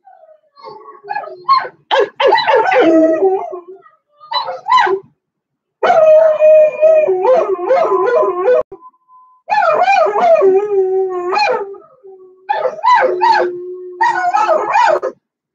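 Puppy whining and howling in drawn-out, wavering cries, in four bouts with short pauses between them.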